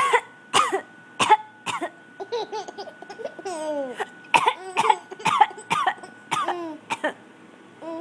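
A woman fake-coughing in a string of short coughs, with a baby laughing in response between and after them.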